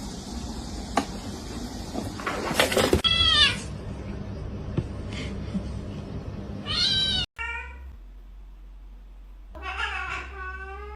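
A cat meows three times, short calls that bend in pitch, about three, seven and ten seconds in. A brief rustling burst comes just before the first meow.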